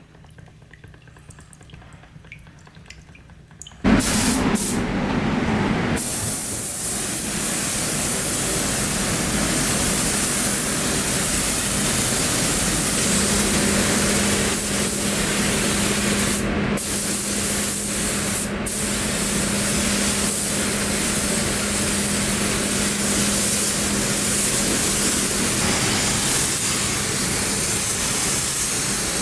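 A few faint drips, then a steady, loud spray hiss starts abruptly about four seconds in and keeps going, with a faint low hum joining partway through.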